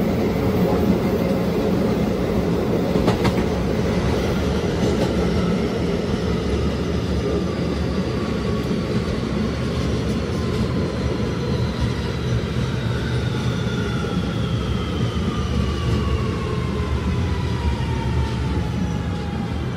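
Kawasaki subway car's Alstom OptONIX IGBT-VVVF traction inverter whining in several tones that fall slowly in pitch as the train slows, over a steady rumble of wheels on rail. A few sharp clicks come about three seconds in.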